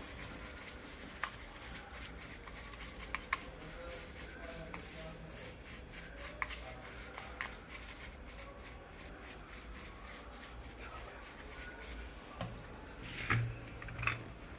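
Hands handling an optical smoke detector's plastic housing and parts: scattered small clicks and rubbing, with louder scrapes and knocks near the end.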